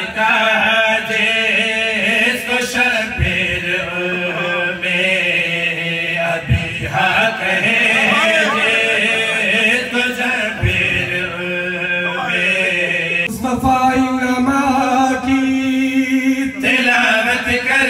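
A man chanting an Urdu qaseeda, a devotional praise poem, in a loud melodic voice. He holds long notes and ornaments them with wavering glides.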